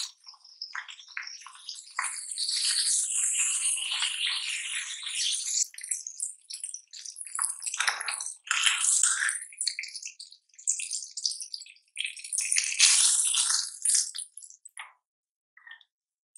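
Bacon and ham sizzling and crackling in a hot non-stick ceramic frying pan. The sizzle comes and goes in stretches and dies away near the end, leaving a few faint ticks.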